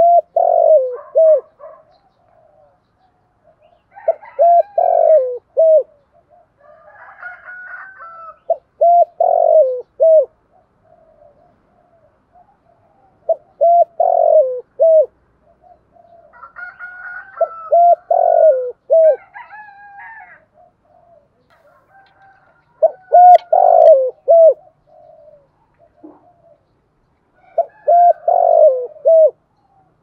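Spotted dove cooing: a short phrase of several low coos, repeated about every four to five seconds, seven phrases in all.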